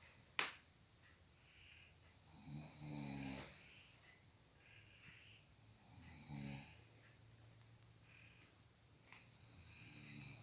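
A sleeping person snoring, three rattling snores on the in-breath about every three and a half seconds. Insects chirp steadily in the background, and there is a single sharp click near the start.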